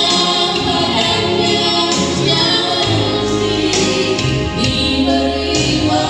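Gospel-style music with a choir singing over sustained low accompaniment.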